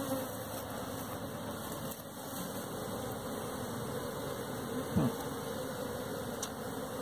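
A mass of honeybees buzzing in a steady hum, a colony just shaken out of its frames and crowding over an open hive box. About five seconds in, one brief louder buzz drops in pitch.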